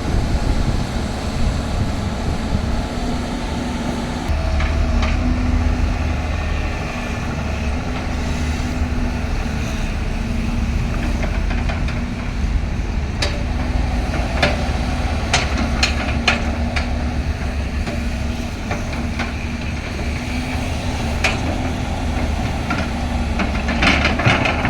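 Excavator's diesel engine running steadily under load, with a number of sharp knocks and clanks, most of them in the second half.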